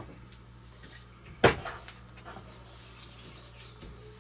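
A single sharp wooden knock about a second and a half in, with a few lighter taps and clicks around it: boards and tools being handled and set down during a glue-up.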